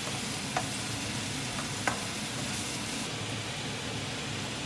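Mushrooms and shrimp sizzling in a nonstick wok as they are stirred, with two sharp clicks of the utensil against the pan, about half a second and about two seconds in.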